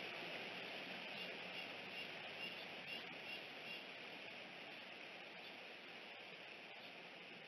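Steady outdoor hiss from the wildlife camera's microphone, with a faint run of short, high chirps, about three a second, for a couple of seconds starting about a second in.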